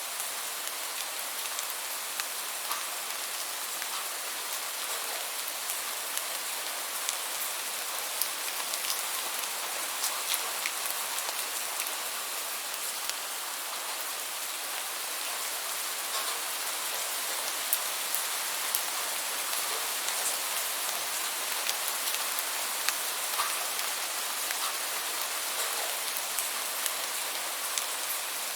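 Steady rainfall: an even hiss of rain with individual drops pattering and ticking sharply here and there.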